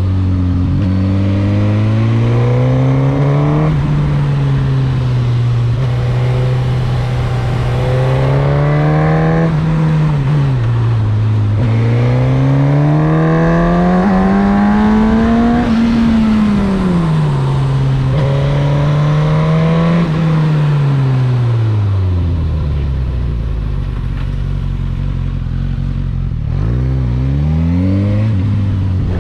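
Suzuki GSX-S1000's inline-four engine heard from the rider's seat, its revs climbing and dropping several times as it accelerates and shifts through the gears. It then falls to a low, steady run as the bike slows, with a quick throttle blip near the end.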